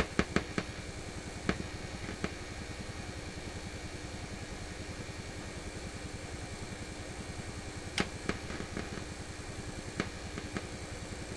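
PYE 39HC valve radio's loudspeaker giving out a steady low thumping with a higher buzz over it. Sharp clicks come as a test capacitor is touched on and off the audio circuit: a cluster at the start, a few more early on, and others about two-thirds of the way through.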